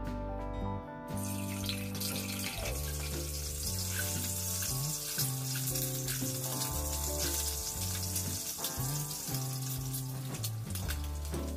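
Halved boiled eggs frying in hot oil in a pan: a steady crackling sizzle that starts suddenly about a second in, over background music with sustained notes.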